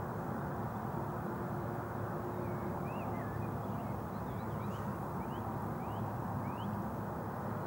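Steady low outdoor rumble, with faint, short rising bird chirps, several of them, through the middle.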